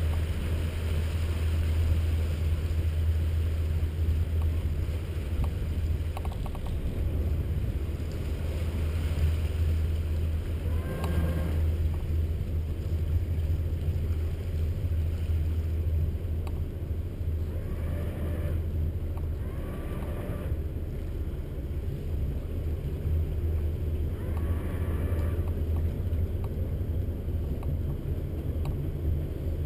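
Motor yacht's engine running at slow, low idle speed, a steady low drone.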